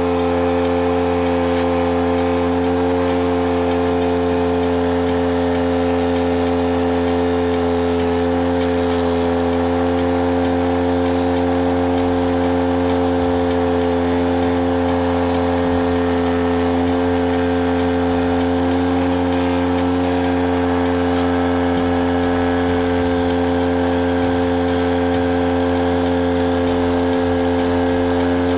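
Angle grinder motor running at a steady speed, driving a reciprocating-saw adapter rigged up as a scroll saw: a constant, unchanging machine hum.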